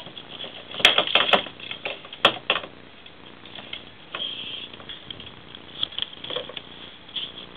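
Ferrets playing with a plastic bottle on a wooden floor: irregular clattering and scrabbling, with a cluster of sharp knocks about a second in and another loud knock a little after two seconds.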